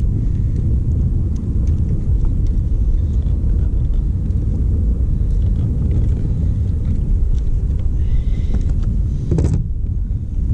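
Wind buffeting the microphone, a steady low rumble, with a few faint clicks from a hook and pliers being handled.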